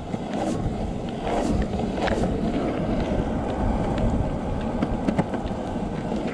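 Wheels rolling on asphalt, as with the child's kick scooter, making a steady low rumble with a few light clicks.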